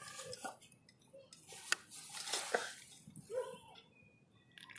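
Scattered quiet clinks and knocks of a vacuum flask and a mate gourd with a metal bombilla being handled as hot water is poured for a refill of yerba mate, with one sharper click about a third of the way in.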